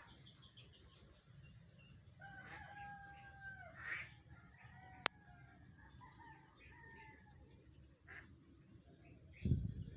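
A rooster crowing once, a long level call about two seconds in that drops at its end, among fainter bird calls. A sharp click about five seconds in, and a loud low thump near the end.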